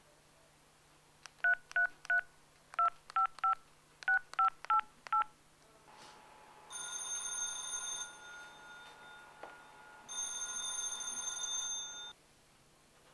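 Mobile phone keypad tones dialing a ten-digit number: ten short two-note beeps in groups of three, three and four. Then a mobile phone ringing: two electronic rings of about two seconds each, two seconds apart, the second cut off when the call is taken.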